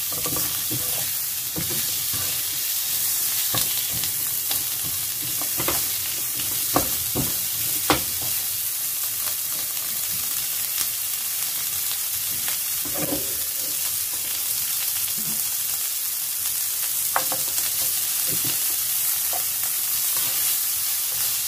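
Asparagus and chopped garlic sautéing in butter in a frying pan: a steady sizzling hiss, with scattered clicks and knocks of the stirring utensil against the pan.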